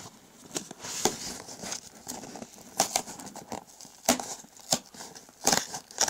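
Cardboard shipping box being worked open by hand: flaps pulled and torn free of packing tape, with scraping and rustling of cardboard and a series of irregular sharp knocks as the box is handled.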